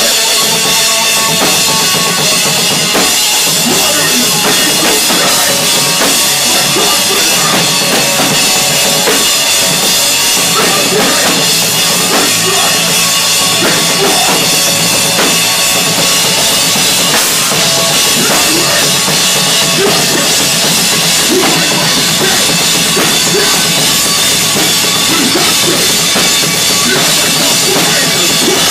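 Hardcore band playing loud live: a pounding drum kit with bass drum and snare under guitar and bass, a continuous wall of sound with no breaks.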